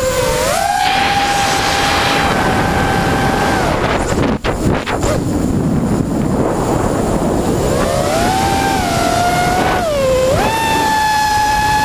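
FPV racing quadcopter's four Emax 2205 2300 kV brushless motors spinning three-blade 5-inch props, a buzzing whine that rises and falls with the throttle. It climbs and holds high, drops away about four seconds in to a rushing noise, then climbs again twice near the end and holds high.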